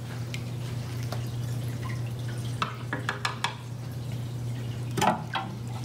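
Water dripping and trickling into a home aquarium, with scattered light drips and clicks and a sharper splash or tap about five seconds in, over a steady low hum.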